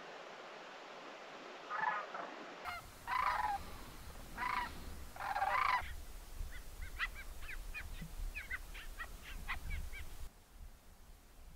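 Geese honking: a handful of louder honks over the first six seconds, then a quicker run of shorter, fainter calls, with a low rumble underneath.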